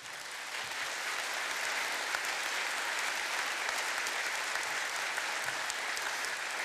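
Large audience applauding, starting suddenly and then holding steady.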